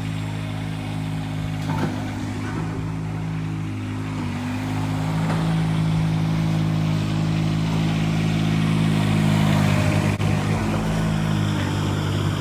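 An engine running steadily with a low, even hum, getting somewhat louder about halfway through.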